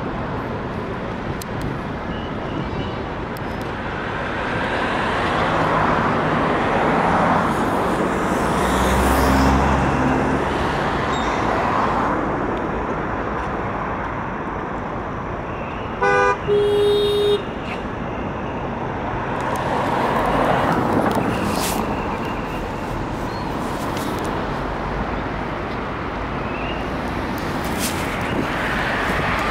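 Road traffic passing, its hiss swelling as vehicles go by, with a heavier engine hum about nine seconds in. About sixteen seconds in a car horn sounds: a short toot, then a longer honk of about a second.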